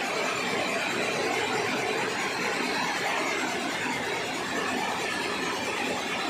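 Weaving looms running in a weaving shed: a steady, dense mechanical clatter that does not let up.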